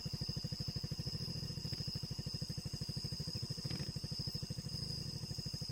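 Honda XR300L Tornado's 294 cc single-cylinder engine idling with a steady, even beat of about a dozen pulses a second, a steady high-pitched whine running alongside.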